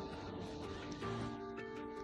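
Background music: sustained notes at several pitches that shift to a new chord about a second in, over a low steady hum.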